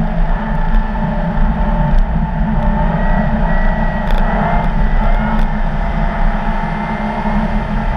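Audi car driving over a snow-packed ice track: steady engine and tyre-on-snow noise with a heavy low rumble. A faint high whine comes in about three seconds in and rises a little before fading.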